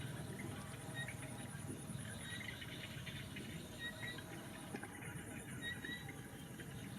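An insect trilling steadily in a very high, evenly pulsed tone, with scattered short, faint chirps and light clicks.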